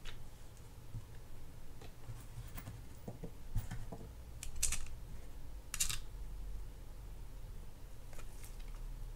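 A handful of sharp little clicks and taps, irregularly spaced, from small metal screws and parts of a conventional fishing reel being picked up and handled during reassembly.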